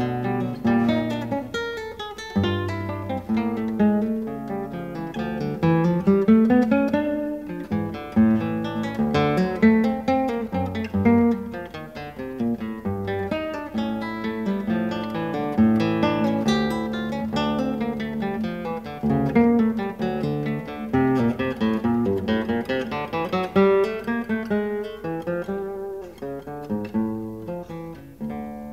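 Acoustic guitar music: a steady stream of plucked and strummed notes with quick melodic runs.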